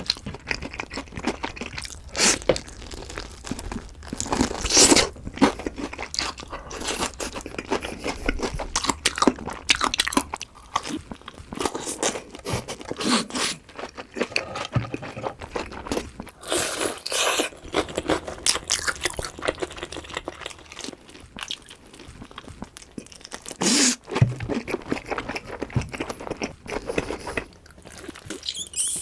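Close-miked crunching of fried chicken: crisp batter cracking in repeated irregular bites, with chewing in between.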